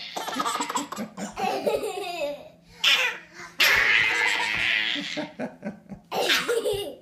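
Infant laughing hard in repeated bursts of giggles and belly laughs, with short pauses between them.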